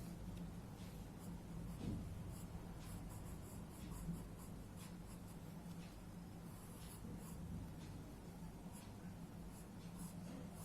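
Pencil scratching faintly on paper in short, irregular strokes while sketching an outline, over a steady low hum.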